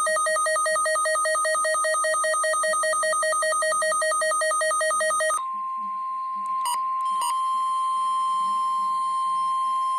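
Weather radio alert: a loud electronic two-tone warble, rapidly alternating between a low and a high pitch, for about five seconds, then the steady single-pitch attention tone (about 1 kHz) of a NOAA Weather Radio alert, with two short clicks a second or two after the tone starts.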